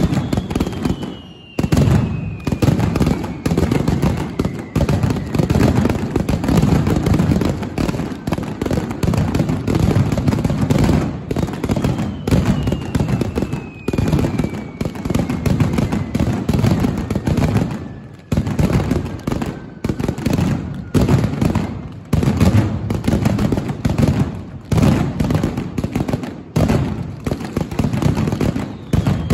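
Mascletà: a loud, dense barrage of ground-level firecracker bangs, with short lulls about a second and a half in and again around eighteen seconds. A high whistle slides slowly down in pitch twice, once at the start and again from about twelve seconds.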